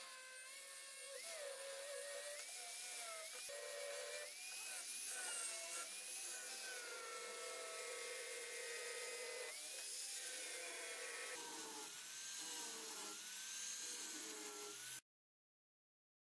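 Angle grinder with a sanding disc running against wood held in a bench vise, sanding it to shape. Its whine dips and rises in pitch as the disc bites and eases off. The sound stops abruptly about a second before the end.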